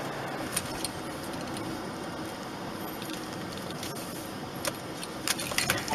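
Steady road and engine noise heard from inside a moving car, with a few light clicks.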